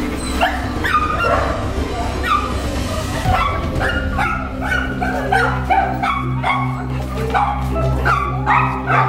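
A dog barking in quick, short, high barks, two or three a second, with a steady low hum underneath from about three and a half seconds in.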